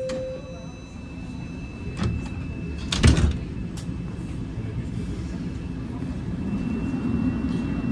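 Toronto Rocket subway car at a station stop: the doors slide open with a sharp knock about three seconds in, over the steady hum of the stopped train.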